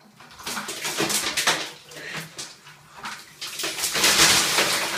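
A bucket of ice water pouring and splashing down over a person, in several surges that are heaviest about four seconds in.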